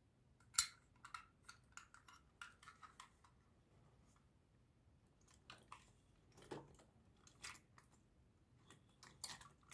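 Light clicks and taps from a diecast toy pickup truck being handled in the fingers, its small hinged door clicking open and shut. One sharp click comes about half a second in, then a quick run of lighter clicks, a pause, a few more in the middle, and a cluster near the end.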